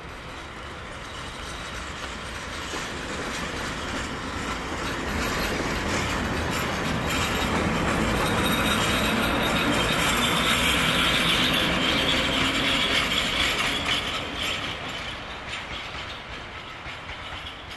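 ET22 six-axle electric freight locomotive running past on the track, its wheels rolling on the rails. The sound swells over the first half, is loudest in the middle, and fades toward the end.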